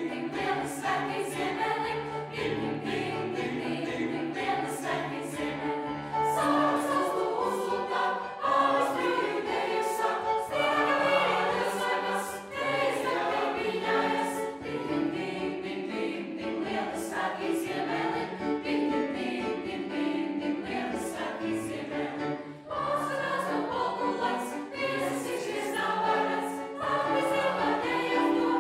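A mixed choir of teenage boys and girls singing a Christmas song together in several voice parts.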